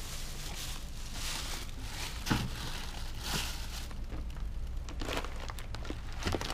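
Shopping being handled and loaded into a pickup truck's bed: rustling of bags and cardboard, with a short knock about two seconds in and a few light clicks near the end.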